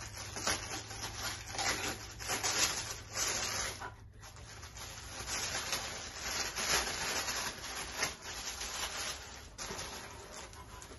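Tissue paper rustling and crinkling as it is pulled open and lifted out of a cardboard box, in repeated bursts with a short pause about four seconds in.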